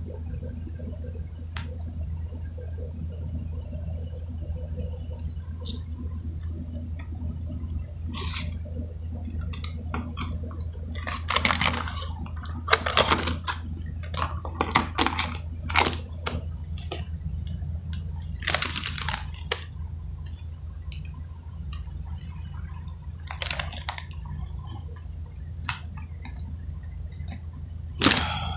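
Handling noises: scattered rustles, scrapes and clicks as small objects and a plastic package are moved about in the hands, over a steady low hum.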